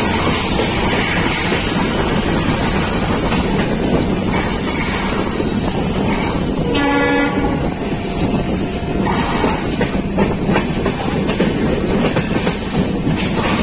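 Running noise of a passenger train heard from an open coach door: wheels clattering over the rails and a steady rush of air, with a WDP4B diesel locomotive hauling a train on the next track. A train horn sounds once, briefly, about seven seconds in.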